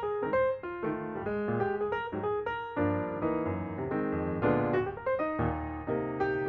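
Background piano music: a steady flow of notes with chords in the bass.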